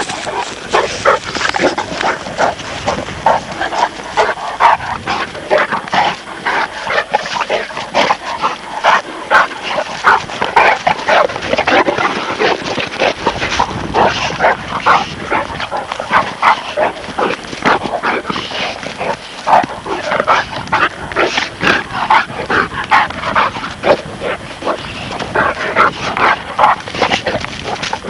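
Presa Canario and Neapolitan Mastiff puppies play-fighting, giving a near-continuous stream of short yips and barks.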